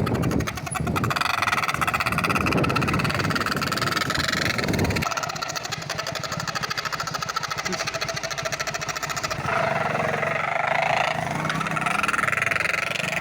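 Motorcycle engine running with a toy pipi horn fitted over its exhaust silencer, the exhaust pulses blowing the horn into a steady buzzing honk. The low rumble drops away about five seconds in, and the horn tone shifts higher about two-thirds of the way through.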